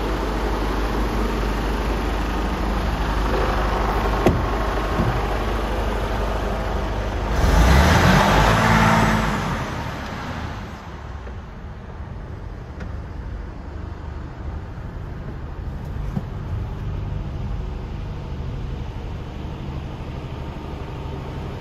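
Mercedes Actros 2545's 12.8-litre straight-six diesel idling, a steady low rumble. A louder rush of noise comes about seven to ten seconds in. After that the idle is heard duller and lower from inside the cab.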